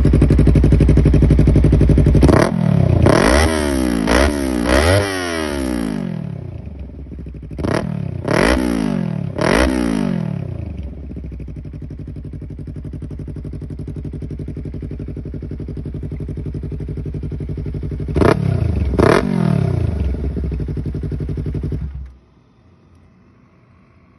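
Yamaha R3 parallel-twin motorcycle with an Akrapovic exhaust idling, then revved in quick throttle blips: four in a row, three more a few seconds later, and two more after a long stretch of idle. The engine is switched off near the end and cuts out suddenly.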